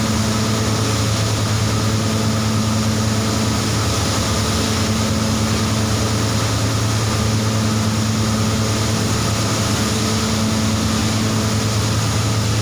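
MY-380F/Y coding machine running continuously at speed: a steady motor hum over a broad whirring noise, with a higher tone that drops out briefly every couple of seconds.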